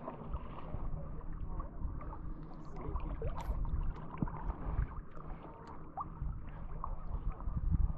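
Water lapping and sloshing against a small fishing boat, a steady low wash with scattered small knocks.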